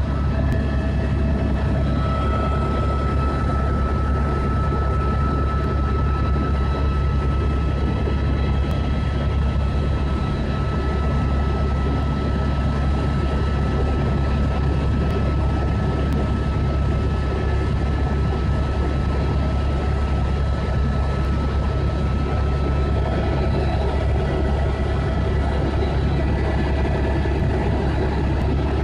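Tour helicopter in flight, heard from inside the cabin: a steady, heavy low drone of rotor and engine with a constant high whine over it.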